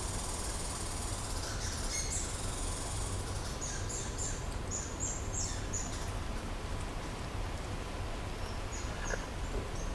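A small bird calling in a run of short, high chirps a few seconds in, and a few more near the end, over a steady low background hum.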